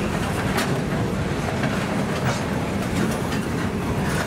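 Freight train cars rolling past: a steady rumble of steel wheels on rail, broken by several sharp, irregular clicks.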